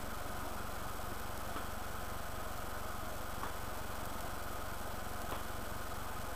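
Steady low hum with an even hiss, and a few faint clicks about a second and a half, three and a half, and five seconds in.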